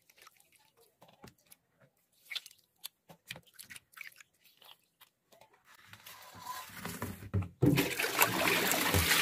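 Soft squelches and small splashes as soaked orange peels are squeezed by hand in a bowl of water. From about six seconds in, the water is poured out of the plastic bowl into a stainless steel sink, a steady splashing that is loudest near the end.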